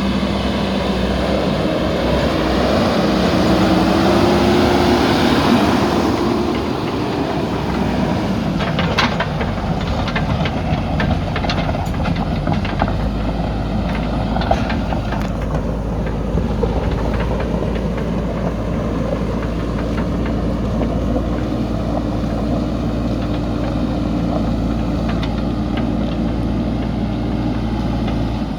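JCB backhoe loader's diesel engine running steadily. It revs higher a couple of seconds in and settles back around six seconds in. Scattered metallic clanks and knocks come from about eight to sixteen seconds in.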